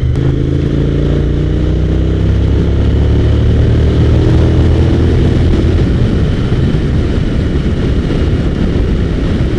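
Suzuki SV1000S's V-twin engine pulling under acceleration in a high gear without a downshift, its revs climbing steadily for about six seconds. After that the engine note fades under steady wind and road rush.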